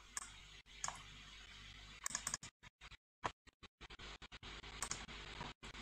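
Faint, scattered clicks of a computer mouse, with a short cluster about two seconds in, over a low steady hum.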